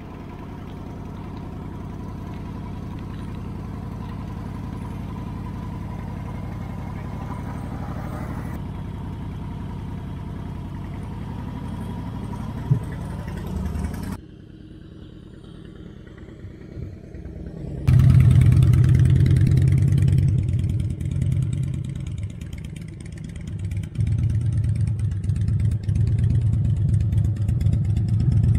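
Motorcycle engine running steadily at low speed. After a quieter pause, a motorcycle engine runs loud and close from about two-thirds of the way in, its level rising and falling as it idles and is revved.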